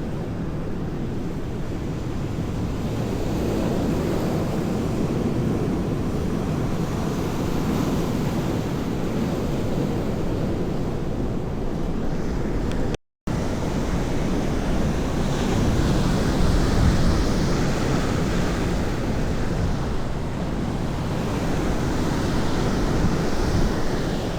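Sea waves washing against the shore, with wind rumbling on the microphone; the sound drops out completely for a moment about halfway through.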